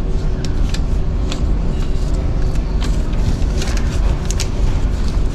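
Steady low rumble of the ferry Osaka II's engines heard inside the ship while under way, with scattered light clicks and clinks on top.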